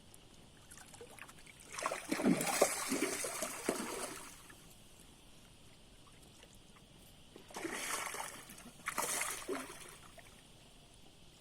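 Water splashing in irregular bursts: a longer spell of splashing about two seconds in, then two shorter splashes later on.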